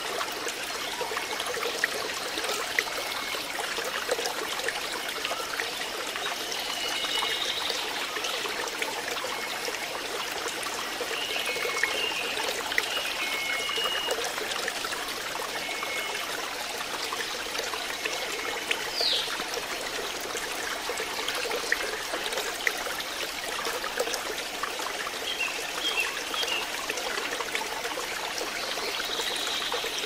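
Shallow rocky stream running over small cascades, a steady rush of water. A few short, faint bird calls come and go through it.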